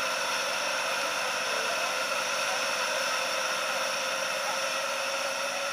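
Steady hiss of steam escaping from a stationary miniature steam locomotive.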